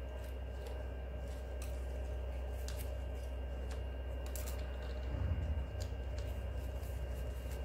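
Faint scattered clicks and scrapes of a utility knife blade cutting spines off a golden barrel cactus, over a steady low hum.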